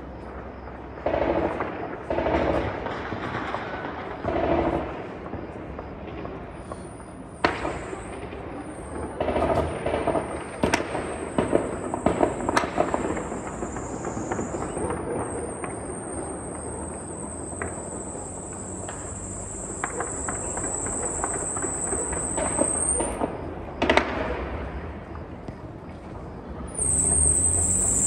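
Celebratory gunfire heard from a distance across the city at night: scattered single rifle shots and rapid strings of shots, each crack echoing off the buildings, thickest in the middle and with one sharp shot near the end.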